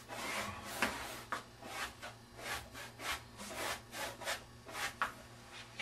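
Paintbrush scrubbing across stretched canvas: a quick run of short, scratchy strokes, about three a second, as paint is laid on in long lines.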